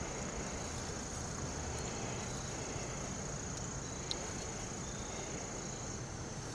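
Outdoor creekside ambience: a steady high-pitched insect drone over an even rushing hiss, with one faint click about four seconds in.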